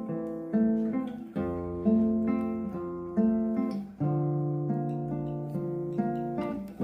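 Recorded music played through a high-end home stereo and picked up by a phone: a plucked acoustic guitar passage, single notes and chords struck every half second or so and ringing out, over a lower bass line.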